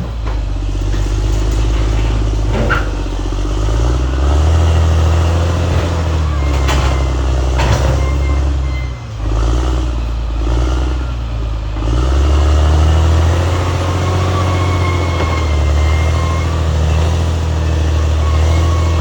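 Caterpillar D6R XL bulldozer's diesel engine working, its pitch rising and falling as the load changes and dipping briefly twice, with a few sharp clanks.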